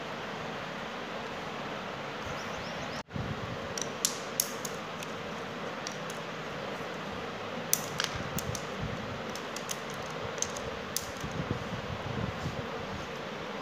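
Thin plastic strips cut from number-plate sheet dropped one after another onto a stone-tile floor, making light, sharp clicks and ticks, a few louder than the rest. Under them runs a steady hiss, like a fan, that briefly cuts out about three seconds in.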